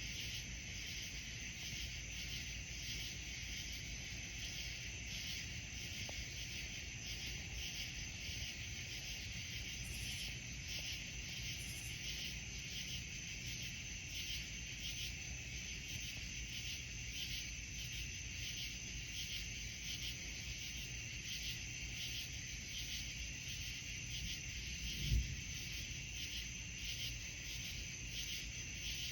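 A night chorus of insects such as crickets, trilling steadily in a regular pulsing rhythm, over a low steady rumble. A single brief low thump comes near the end.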